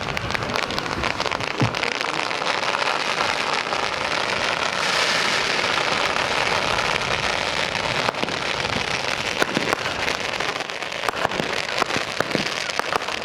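Fireworks crackling: a continuous hissing crackle of many small pops, loudest about five to eight seconds in, with louder single pops standing out in the second half.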